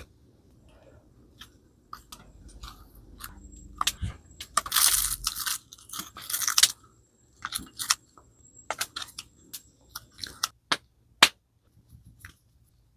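Camp cooking handling: scattered clicks and knocks of utensils and containers, with a stretch of crunching and rustling about five seconds in.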